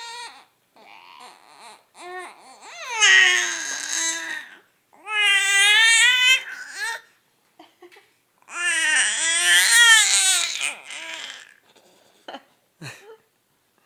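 A baby making loud, high-pitched vocal sounds, three long wavering squeals or cries with shorter, quieter babbles between them.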